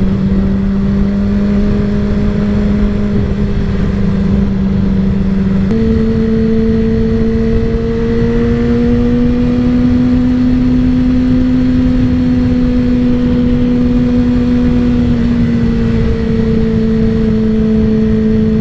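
Yamaha YZF-R6 inline-four engine running steadily while riding, over steady wind rush. Its pitch steps up about six seconds in, climbs a little more, then eases back down near the end.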